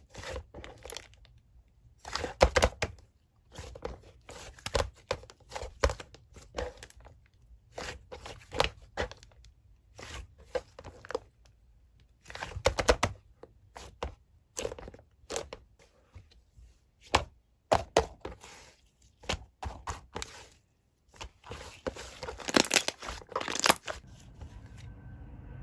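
Slime being squeezed, stretched and poked by hand, giving irregular bursts of crackling and popping.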